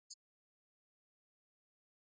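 Near silence, broken once just after the start by a single very short, faint high-pitched tick.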